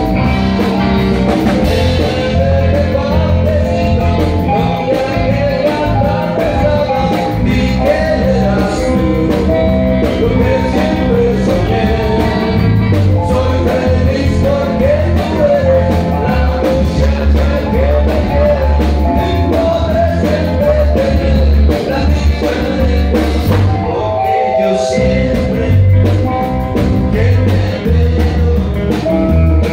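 A live rock and roll band playing through a PA system: electric guitars and a drum kit, with a man singing into a microphone. The music is loud and steady.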